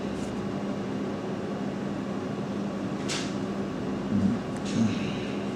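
Steady room hum with a constant low tone, like a shop's air conditioning. There is a brief swish about three seconds in and two short low blips near the end.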